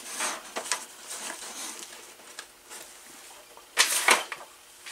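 Light rustling and soft taps from a sweatshirt sleeve and hands moving over a stone countertop, with two short louder rustles about four seconds in.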